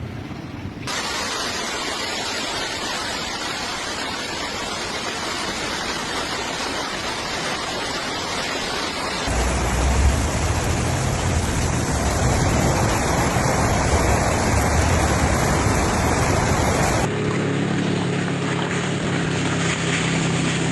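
Heavy storm rain and hail coming down as a dense, steady hiss. It changes abruptly about a second in, about nine seconds in and near the end. The middle stretch is louder, with a deep low rumble under the hiss.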